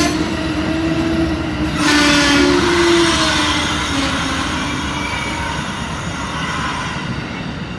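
Amtrak passenger locomotive air horn sounding its chord in a few blasts over the rumble of the arriving train. The horn stops about three seconds in, and the train noise slowly fades.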